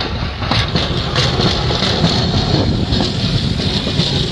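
Steady outdoor rumble and hiss with a few faint clicks.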